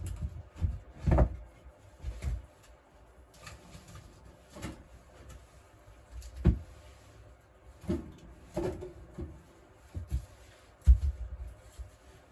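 Scattered knocks and thuds, about eight spread unevenly over twelve seconds, with quiet between them.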